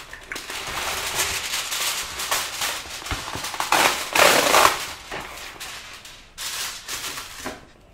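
Aluminium foil being pulled out of its box, torn off and crinkled as it is spread flat: a run of crackling, loudest about halfway through, with two shorter crinkles near the end.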